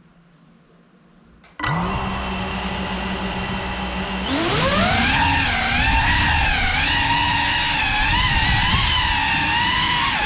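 GEPRC Cinelog 35 6S ducted cinewhoop FPV drone's motors and propellers: about a second and a half in they start spinning with a sudden steady whine. About four seconds in the throttle comes up and the whine climbs in pitch, then wavers up and down as the drone takes off and flies.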